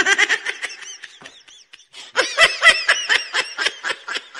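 A person laughing in quick, high-pitched bursts: a first fit that trails off, then a louder second fit starting about two seconds in.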